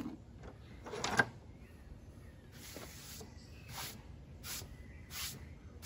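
Hands pulling apart and working a cotton ball for a fire roll: a run of short, scratchy rustles about two thirds of a second apart, with a sharper click about a second in.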